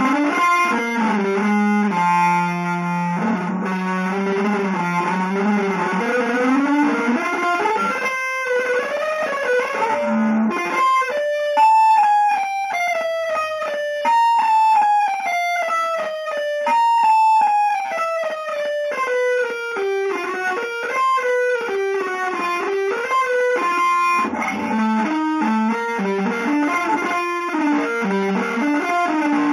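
Electric guitar music played through effects. Over the first part a low note is held under shifting notes above it; from about eleven seconds in come rapid runs of picked notes that cascade downward again and again.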